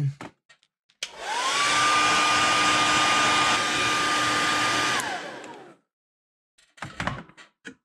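Hair dryer switched on about a second in: a rush of air over a motor whine that rises to a steady pitch, runs for about four seconds, then falls away as it is switched off and spins down. It is drying freshly airbrushed paint on a lure so that more can be sprayed without running.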